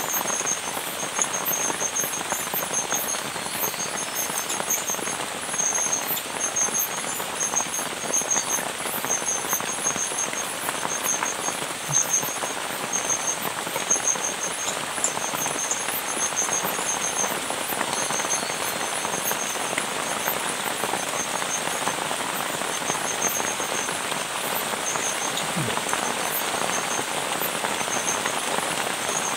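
Heavy rain falling steadily on a tarp shelter roof, a dense even rush of water with drips. A faint, rapid high-pitched chirping runs over it.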